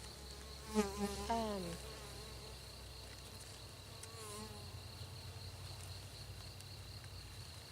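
Honeybees buzzing: a steady hum from a package of worker bees, with single bees flying close past about a second in and again near four seconds, their buzz falling in pitch as they pass.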